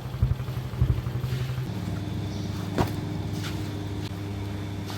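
An engine running steadily, its hum stepping down in pitch once about a third of the way in, with a single sharp click near the middle.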